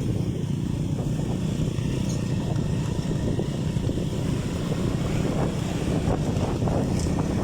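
Boat motor running steadily, a continuous low rumble, with wind buffeting the microphone.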